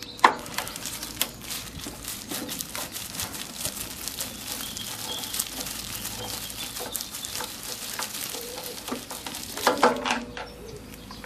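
Flathead screwdriver backing out the screw on the plastic air filter cover of a Briggs & Stratton lawn mower engine: a dense crackle of small clicks and scrapes, with a few louder knocks about ten seconds in as the cover is taken off.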